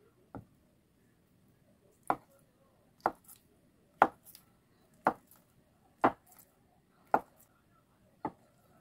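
Cleaver chopping down through a block of Korean muk jelly onto a wooden cutting board: eight sharp knocks about a second apart, the first one softer.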